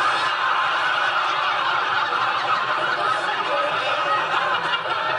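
Studio audience laughter: many people laughing at once in a dense, steady wave.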